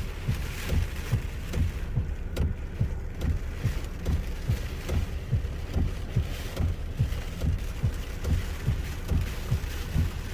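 A low rumble with irregular low thumps, about two a second, and a few faint ticks, heard from inside a truck driving through storm wind and rain.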